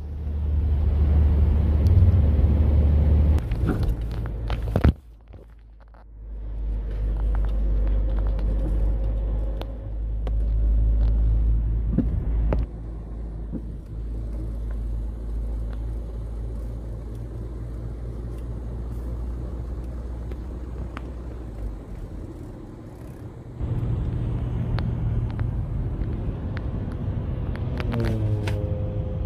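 Low, steady road rumble of a moving car heard from inside the cabin, with the drone of passing traffic; the rumble drops away briefly about five seconds in. A short pitched tone sounds near the end.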